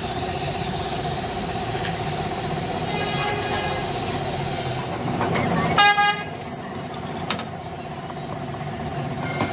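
A vehicle horn gives one short honk about six seconds in, the loudest sound, over a steady background hum with traffic noise.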